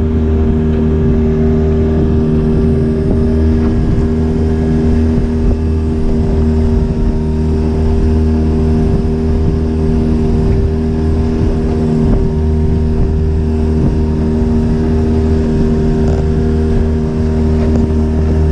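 Motorboat engine running steadily at an even pitch.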